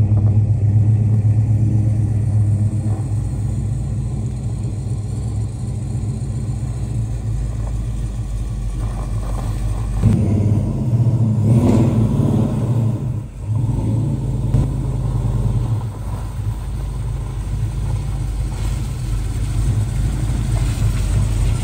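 1968 Dodge Dart's engine running with a steady low rumble; about ten seconds in the engine note rises and gets louder, dipping briefly a few seconds later.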